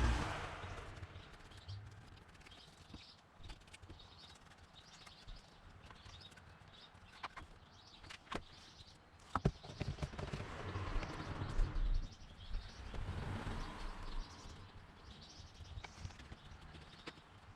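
Outdoor background with small birds chirping on and off, a few sharp clicks or taps, and a low rushing swell that rises and fades twice near the middle.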